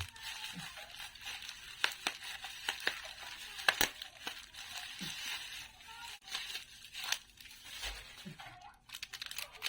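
Plastic packaging crinkling and rustling while a bag of small plastic wire connectors is handled, with many sharp clicks scattered throughout.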